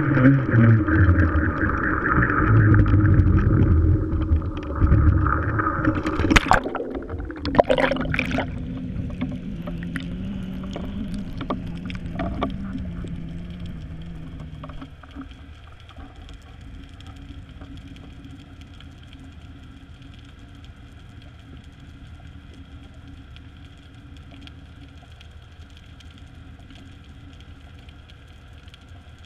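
A GoPro in its waterproof housing being lowered on a line into the sea: a muffled rumble while it hangs above the water, then a few sharp knocks and splashes about six to eight seconds in as it goes under. After that comes a steady underwater drone with several constant tones.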